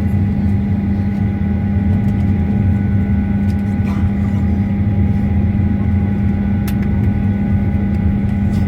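Steady cabin noise of a Boeing 737-900ER taxiing after landing: the drone of its CFM56-7B engines at idle and the air conditioning, with a low hum and a faint steady whine. A couple of faint clicks come about four and seven seconds in.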